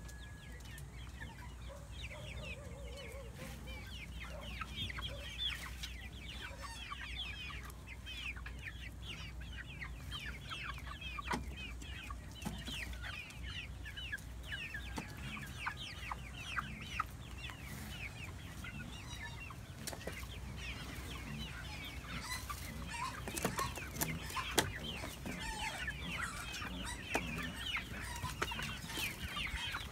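A flock of young hens near laying age clucking and chirping, with many short high calls overlapping throughout. A few sharp clicks stand out, several of them near the end.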